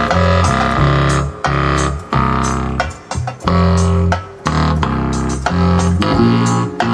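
Instrumental music with plucked guitar and a strong, moving bass line, played back at full volume.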